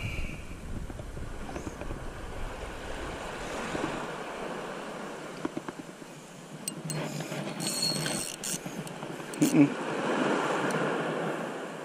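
Wind on the camera's microphone over small surf washing in, with a few short knocks and rubs from handling, the sharpest near the end.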